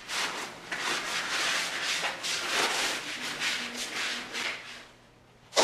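Paper towel rubbed back and forth along a motorcycle fork's coil spring, a rough scrubbing in quick repeated strokes as the old fork oil is wiped off; it stops about five seconds in.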